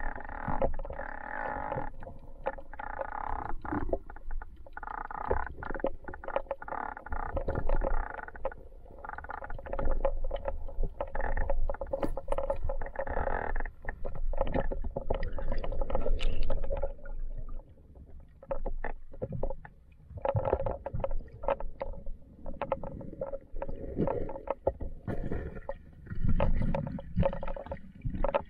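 Underwater camera sound in a river: the current rushes and rumbles over the camera's microphone, with frequent muffled clicks and knocks. It comes in uneven surges and eases off for a few seconds past the middle.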